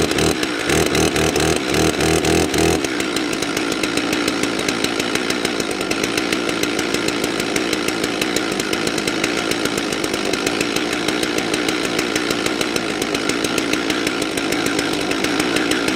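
Stihl MS 270 Farm Boss two-stroke chainsaw engine running just after a cold start in below-freezing weather. It pulses unevenly for the first few seconds, then settles into steady running before cutting off suddenly near the end.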